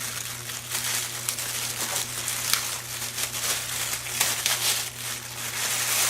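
Packaging being handled and unwrapped: continuous crinkling and rustling with many small clicks and crackles, over a steady low hum.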